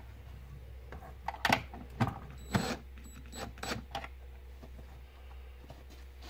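Cordless drill driving a screw into an OSB wall in short bursts, with a few sharp knocks and clicks between about one and four seconds in.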